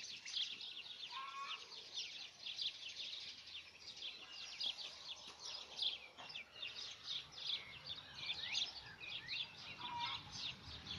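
Many small birds chirping together in a dense, busy chorus of quick high chirps, with a couple of short lower calls about a second in and near the end.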